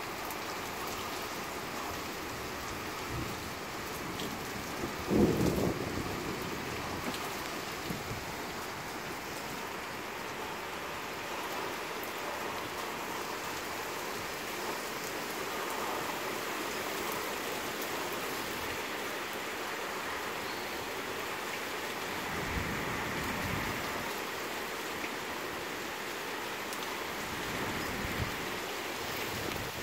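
Steady rain falling, heard as an even hiss, with one brief louder thump about five seconds in.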